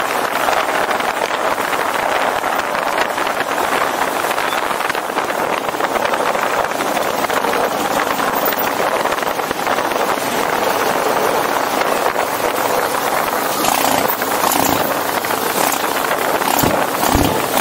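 Motorcycles riding at road speed: a steady rush of wind and road noise over the engines, with some low buffeting thumps in the last few seconds.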